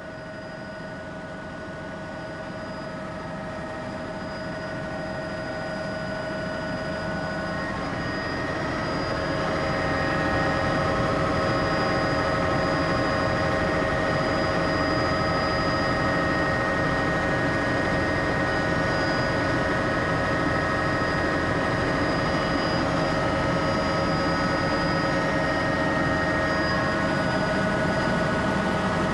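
Helicopter engine and rotor noise as heard by a passenger: a steady whine made of several fixed high tones over a low rumble. It grows louder over the first ten seconds, then holds steady.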